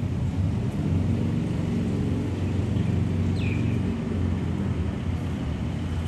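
Steady low outdoor rumble of distant city and sea ambience. A bird gives one short falling chirp about three and a half seconds in.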